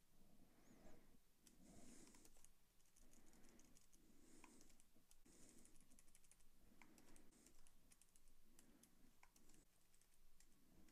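Faint computer keyboard typing: irregular single keystrokes and short runs of keys as code is entered.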